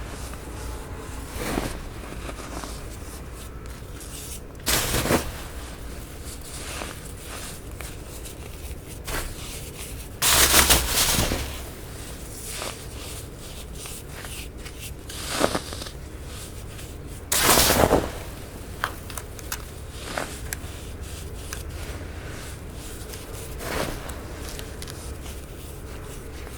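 Packed baking soda being crushed and crumbled, with soft irregular crackles throughout and a few louder crunches, two of them lasting about a second each.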